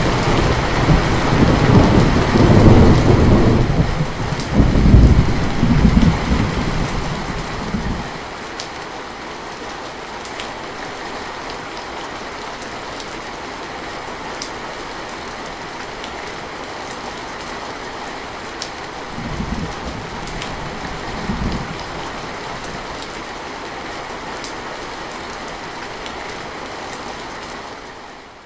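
Steady rain with thunder rumbling through the first several seconds, then rain alone with two short low rumbles of thunder past the middle. The sound fades out near the end.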